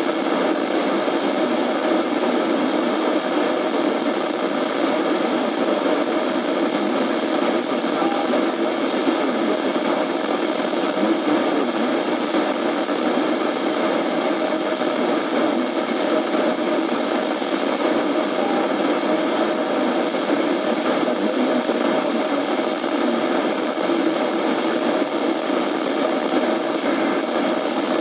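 Steady radio static: an even hiss from a weather radio receiver, unchanging throughout.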